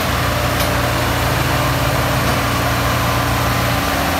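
Diesel engines of two tractors, a Sonalika DI-55 and a New Holland 3630, running steadily under heavy load as they pull against each other chained together in a tug-of-war.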